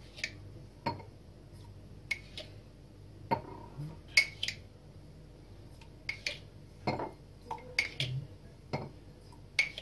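Metal teaspoon clinking against a ceramic sugar bowl and drinking glasses as spoonfuls of sugar are scooped and tipped into two glasses. Scattered light clinks and taps, the sharpest about four seconds in and near the end.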